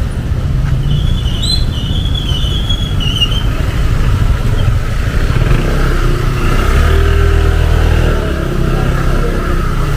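Road traffic: cars and motorcycles passing on a rain-wet street, with a steady low rumble and one vehicle's engine growing loudest around the middle before easing off. A brief high squeal sounds near the start.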